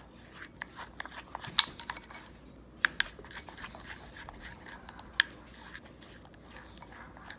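Glue slime with activator being mixed in a bowl: soft sticky stirring sounds with a few sharp clicks, four of them standing out over the quieter mixing.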